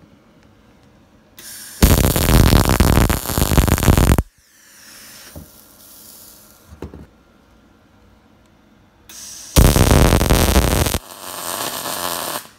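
Wire-feed welder arc running in two bursts of welding on a steel shifter yoke. The first burst lasts about two and a half seconds and the second about a second and a half, then it drops to a quieter stretch near the end.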